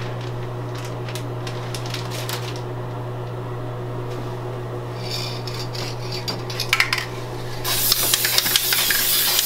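Aerosol spray can starts hissing about eight seconds in, steady and loud, as activator is sprayed over hydro-dip film floating on water. Before it come a few small clicks and rattles of handling, over a steady low hum.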